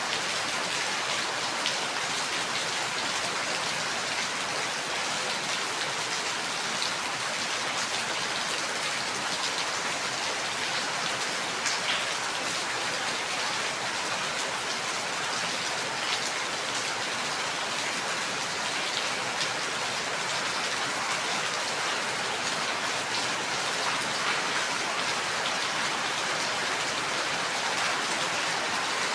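Steady rain falling, an even hiss with scattered individual drops ticking against a surface.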